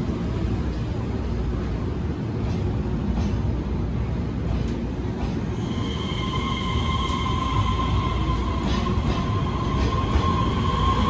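Electric multiple-unit train rolling slowly along a station platform with a steady low rumble. About halfway through, a steady electric whine comes in from the train's traction equipment as it gathers speed.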